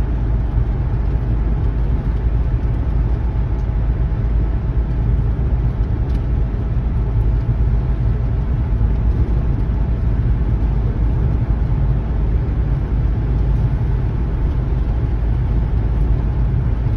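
Steady low rumble of road and engine noise inside a moving vehicle's cabin.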